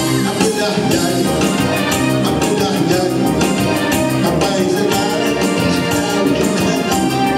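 Live music from an electronic keyboard playing a song's accompaniment with a steady percussive beat.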